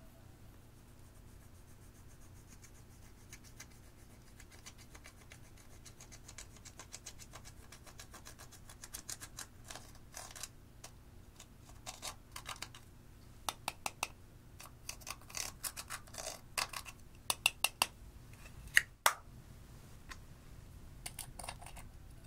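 A thin metal tool scraping and crumbling pressed powder makeup in its plastic compact pan: quick fine scratching, then bursts of sharp clicks and taps of metal against plastic, loudest a few seconds before the end.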